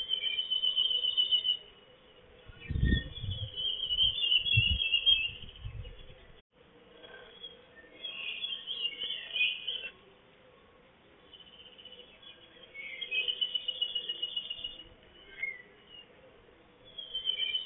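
A small songbird singing repeated high trilling phrases, each a second or two long, with pauses between them; low rumbles come through about three to six seconds in.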